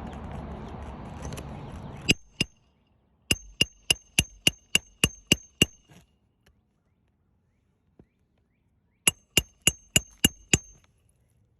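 Hammer driving roofing nails through asphalt shingles, each blow a sharp metallic ring. The blows come in three runs: two, then about ten at roughly three a second, then six more near the end. A steady rushing noise that fills the first two seconds stops just before the hammering begins.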